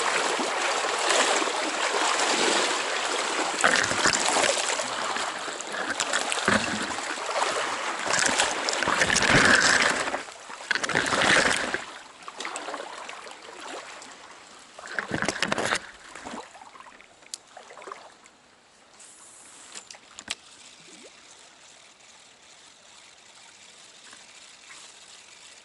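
Close, rushing and splashing stream water, loud for about the first twelve seconds with stronger surges near the ten-second mark and again around fifteen seconds, then settling into a quieter steady flow.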